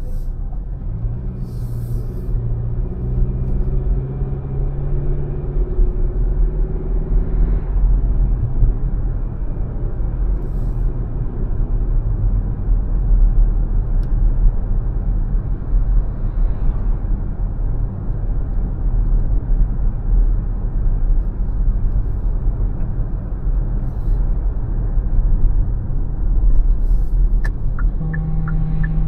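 A car driving along a city street, with a steady low rumble of tyres and engine. A low droning tone sounds through the first several seconds.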